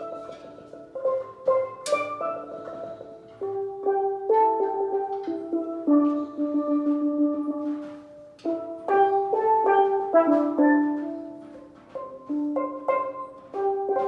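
Steel pan playing a melody, single struck notes mixed with longer held notes that ring for a second or two.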